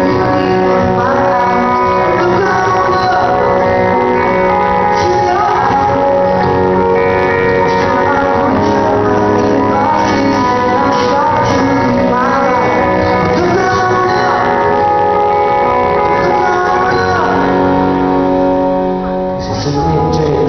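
Live rock band playing, with acoustic guitar strummed at the microphone, electric guitar and singing. The music dips in level briefly near the end.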